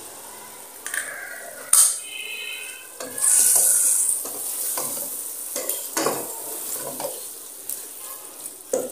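Potatoes and eggs frying in an aluminium pot: a sharp crack just under two seconds in, a loud burst of sizzling a second and a half later, then a wooden spatula stirring and scraping the pot with scattered knocks against its side.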